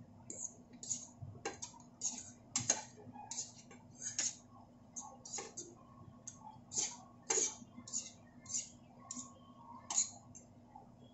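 Knife slicing a red onion held in the hand: a run of short, crisp, irregular cuts, about two a second.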